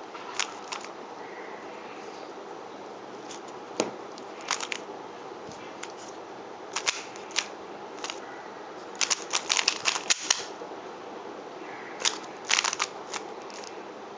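A 3x3 Rubik's cube being turned by hand: scattered sharp clicks and clacks of its layers, in short groups with a quick run of them about nine to ten seconds in, over a steady low hiss.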